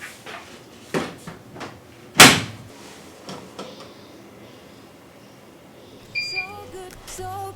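A few light clicks, then one loud sharp thump like a door shutting about two seconds in. Short electronic beeps follow near the end.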